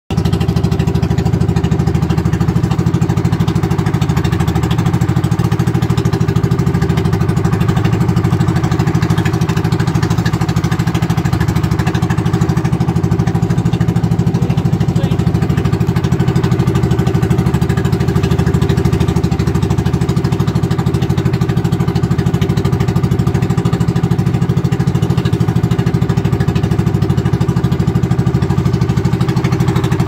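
A small boat's engine running steadily at cruising speed, a constant low drone with water rushing and splashing along the hull.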